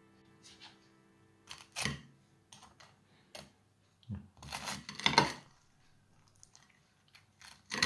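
Serrated knife sawing through the crisp fried crust of a cheese croquette on a ceramic plate: a series of short crunchy rasps and clicks, the loudest about five seconds in. Soft background music fades out in the first two seconds.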